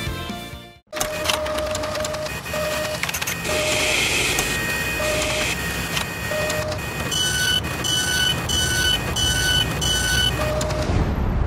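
Machine sound effects for an animated end card: steady mechanical whirring and clicking like a printer mechanism. A low electronic beep sounds several times over the first half, then a higher beep repeats about twice a second near the end.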